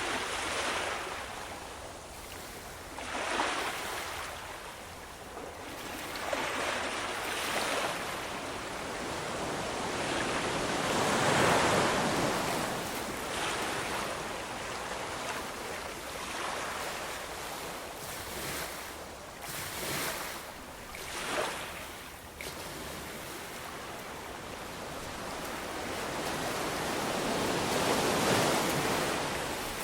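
Ocean waves breaking and washing in, swelling and ebbing every few seconds, with a few short splashy surges about two-thirds of the way through.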